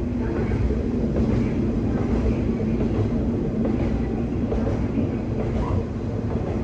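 Kanto Railway 2000-series diesel railcar running steadily along the track, its engine drone mixed with wheel and rail noise.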